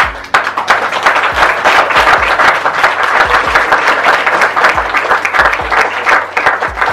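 An audience of high-school students applauding: many hands clapping steadily and densely.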